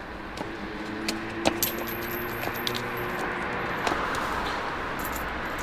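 Street background with a steady traffic hum and a few sharp, irregular clicks, the loudest about a second and a half in.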